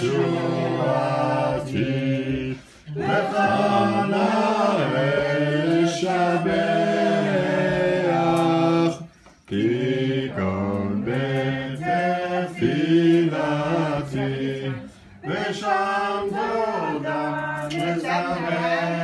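A group of voices singing a Hanukkah song together, unaccompanied, in long phrases with short breaths between them about 3, 9 and 15 seconds in.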